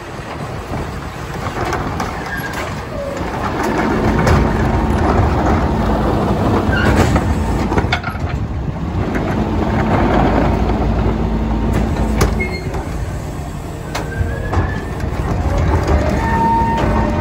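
Autocar ACMD Loadmaster rear-loader garbage truck running while its hydraulic cart tippers lift and dump wheeled trash carts into the hopper. A steady hydraulic hum is held for long stretches, with knocks of carts against the tipper and a few short squeaks.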